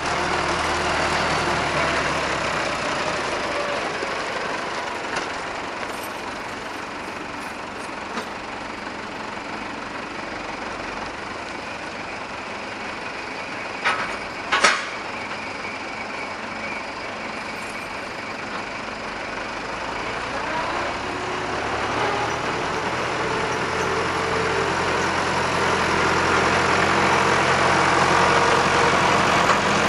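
Farm tractor engine running while it tows a wagon, growing louder over the last third. Two sharp knocks come about 14 seconds in, the second louder.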